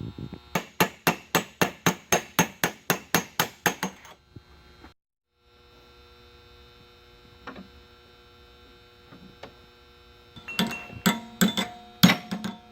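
A hammer striking a flat metal strip being bent into a curve in a vise. A quick run of about fifteen even blows, about four a second, is followed after a short break by a few slower blows near the end that leave a metallic ring. A steady electrical hum runs underneath.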